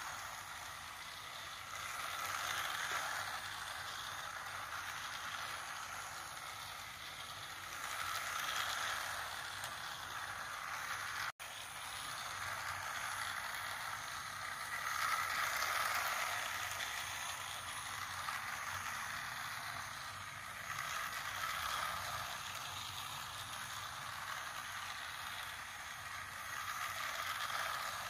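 Battery-powered toy train running on a plastic track, its small motor and wheels making a steady whirring rattle. The sound swells about every six seconds as the train passes close by on each lap.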